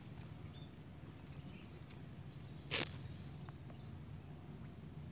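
Faint, steady, high-pitched insect trill over quiet swamp background, with a single sharp click a little past halfway.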